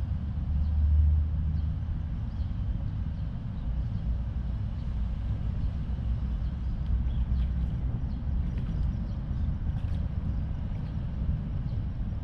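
Low, steady rumble of traffic on a highway bridge overhead, swelling briefly about a second in.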